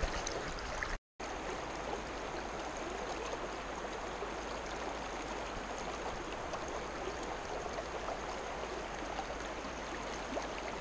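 Creek current flowing steadily around a wading angler, an even rush of water. The sound cuts out completely for a moment about a second in.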